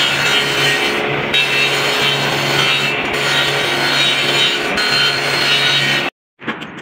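Table saw running and cutting through a laminated board: a loud, steady sawing noise over a constant motor hum. It cuts off abruptly about six seconds in.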